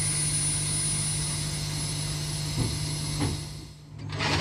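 Cab interior of an all-electric Class 8 tractor at a standstill, ready to drive: a steady low hum with a thin high whine and no engine running. The sound dips away briefly near the end, then louder noise comes in as the truck starts off.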